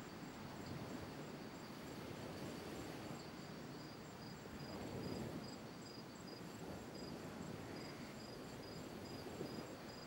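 Faint night insects chirping: a steady run of short, high-pitched pulses over a low background hiss.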